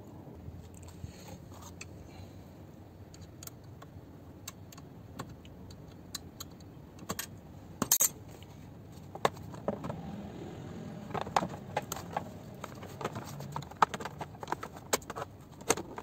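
Scattered clicks, clinks and knocks of car seat parts being handled and fitted: the metal seat frame, the height-adjuster mechanism and the plastic side trim. The clicks are sparse at first, with one louder knock about halfway, then come thicker through the second half.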